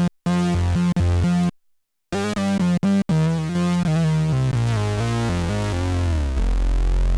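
Electric bass played through an Electro-Harmonix Bass Mono Synth pedal, giving a synth bass tone. Short notes stop abruptly, with a brief silence early on, then a line of notes steps down in pitch and ends on a long-held low note.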